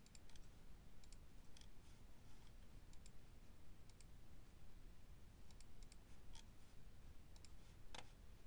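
Faint, irregular clicks of a computer mouse and keyboard, the clearest near the end.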